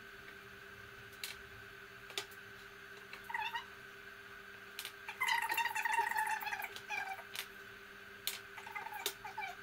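Small metal slotted weights clicking against each other several times as they are set on the load hanger of a wooden-beam bending test. Short squeaks are heard over a faint steady whine, and a longer squeak about five seconds in is the loudest sound.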